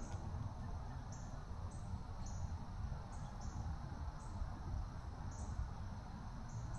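Faint insect chirping: short, high-pitched chirps repeating irregularly every half second to a second, over a low, uneven rumble.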